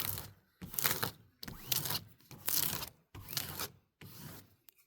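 Crinkling and rustling of a diamond painting canvas and its plastic cover sheet being handled, in about six short bursts.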